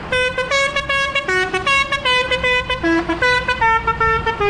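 A vehicle's musical horn playing a quick tune of stepped notes, about three a second, over the low rumble of a passing tractor engine.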